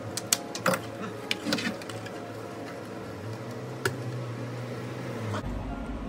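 Clicks and knocks of hard plastic being handled as a gasket is pressed into the hole cut in a plastic bucket lid: a quick run of sharp clicks in the first two seconds and one more near four seconds, over a low steady hum.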